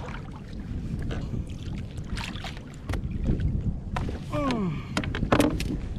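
Knocks and rustles from handling a caught fish and gear in a kayak, over a low rumble of wind on the microphone. A brief falling squeak comes about four and a half seconds in.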